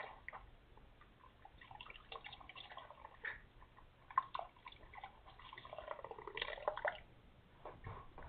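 Wet, crackling rubs of a damp rag being worked over a cat's fur, in short irregular strokes.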